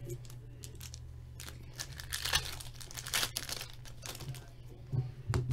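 A trading-card pack's plastic wrapper being torn open and crinkled by hand: irregular crackling rustles, starting about a second and a half in.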